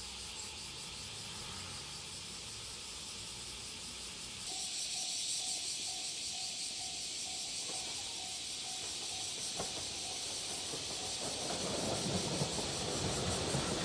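Japanese level-crossing warning bell ringing in quick steady pulses, starting about four seconds in, over a steady hiss. Near the end the rumble of an approaching JR 2700-series diesel express swells and covers the bell.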